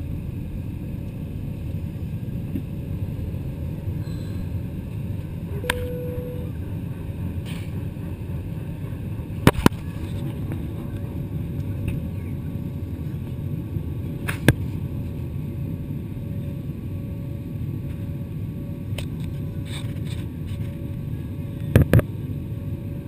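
Steady low rumble of an airliner during takeoff, with a few sharp clicks and knocks, two of them in quick succession near the middle and again near the end.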